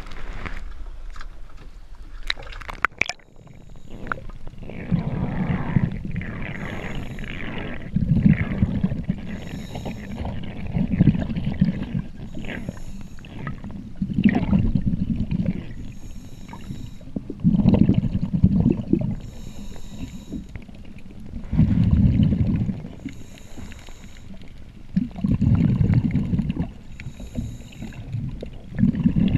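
A scuba diver breathing on a regulator, heard underwater: bursts of bubbling exhaust rumble out about every three to four seconds, with a hiss of inhaling between them. Knocks and splashing in the first three seconds as the camera goes under.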